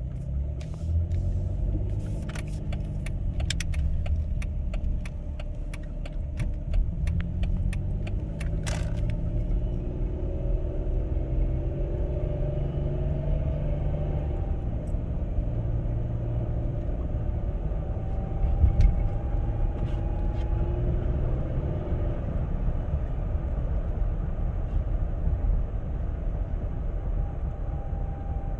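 2007 Dodge Charger SXT's 3.5L V6 drivetrain running, with a thin whistling whine riding above the engine note and gliding up and down in pitch as the engine speed changes; a new noise whose cause the owner has not found. Scattered sharp clicks during the first nine seconds or so.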